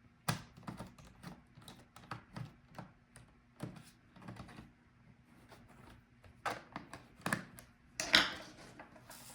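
Light clicks and taps of a small screwdriver working the bottom-case screws of a laptop, with a few louder clicks near the end.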